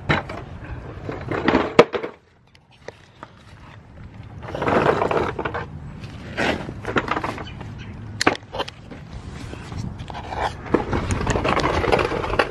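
Mechanic's creeper rolling and scraping on its casters as a person lies back on it and slides under a truck, with scattered knocks and clatters and handling noise from the camera held in hand.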